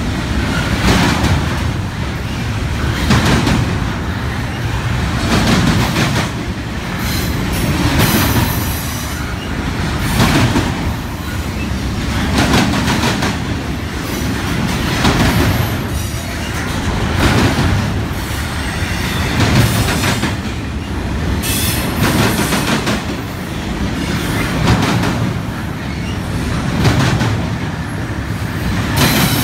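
Double-stack freight train's well cars rolling past at close range: steady wheel rumble and clatter on the rails, swelling in a regular beat about every two seconds as each set of wheels goes by.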